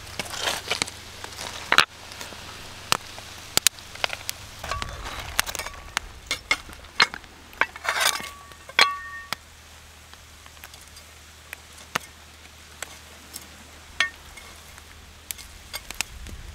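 Seaweed heaped over a beach fire crackling and sizzling as it steams the seafood underneath, with irregular sharp pops and a few brief high squeaks.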